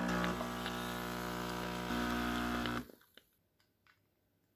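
Capsule coffee machine's pump buzzing steadily as it brews coffee into a glass, cutting off abruptly nearly three seconds in. A few faint clicks follow.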